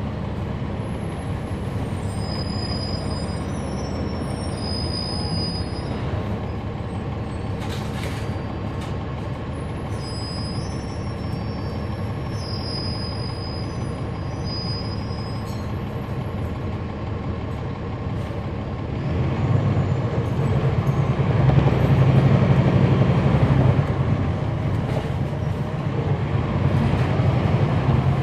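Cummins ISL9 diesel engine of a 2011 NABI 416.15 transit bus heard from on board, running low and steady, with thin high squeaks twice in the first half. About two-thirds of the way through, the engine note rises and gets louder as the bus pulls away and accelerates.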